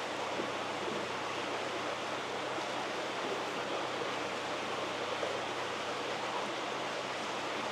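Steady rush of running water in koi holding tanks, with a faint low hum underneath.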